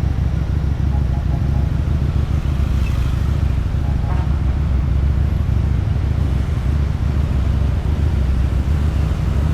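Motorcycle engine and exhaust running steadily under way, ridden with no big revving.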